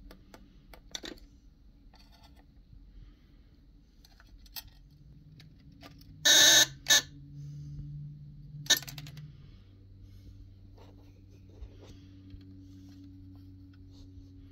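Metal tweezers clicking and scraping against the perforated tin lid and small wooden sticks of a vintage Electric Jack Straws game, with a loud half-second burst about six seconds in and shorter sharp ones just before seven and near nine seconds.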